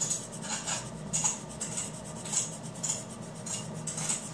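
Coloured pencil scratching across paper in short, irregular shading strokes, about two or three a second, picked up close to the sheet.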